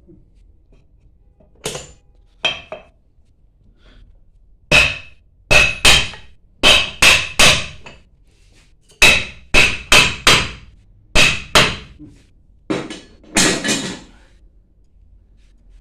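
Hammer striking metal parts of a booster pump under repair, about twenty blows in irregular runs, each with a short metallic ring.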